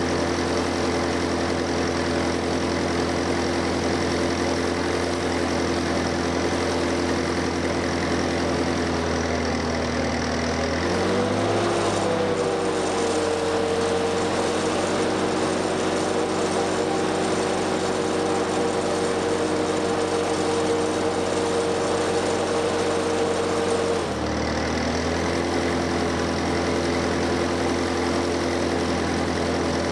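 1963 Lincoln SA-200 Pipeliner engine-driven welder running steadily in high range while a 7024 rod burns, with the crackle of the welding arc over the engine. About eleven seconds in the engine's pitch rises and holds as the arc breaks and the load comes off. About twenty-four seconds in it drops back as the arc is struck again, and the machine takes the load without bogging or missing.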